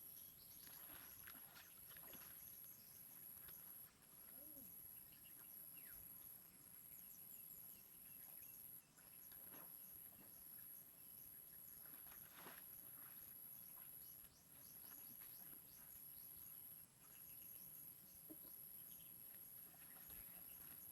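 Near silence, apart from a faint steady high-pitched chirring of insects that drops out briefly every few seconds, and a few soft clicks.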